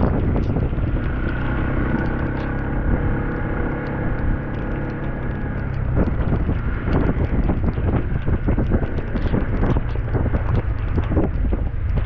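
A vehicle engine running while driving over a rough road, with knocks and rattles and wind buffeting the microphone. A steady engine tone stands out in the first half.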